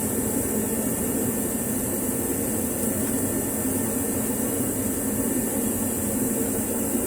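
A steady, even mechanical drone with no rhythm or breaks, like a running fan or blower.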